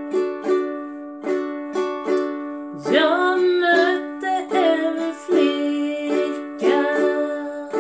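Ukulele strummed in a slow, even rhythm, about two strokes a second. A woman's singing voice comes in about three seconds in and again near the end.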